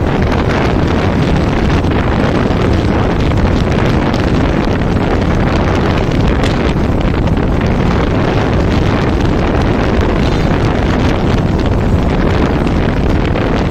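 Loud, steady wind buffeting the microphone, with the low rumble of a moving vehicle underneath.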